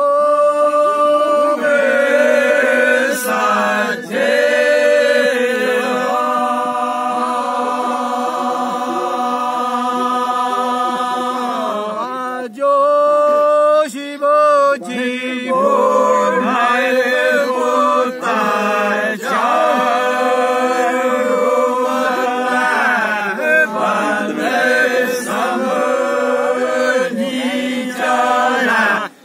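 A group of men singing a Dogri bhaakh (pa'akh) folk song without instruments: long drawn-out notes held and slowly bent, over a steady low held note.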